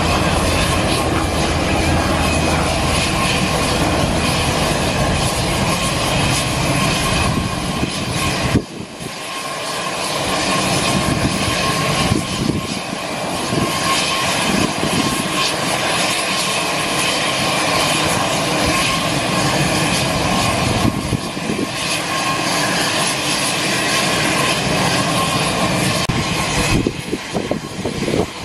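Turbine noise from a parked Lockheed C-130 Hercules: a loud, steady whine and rumble. It drops suddenly about nine seconds in, then builds back.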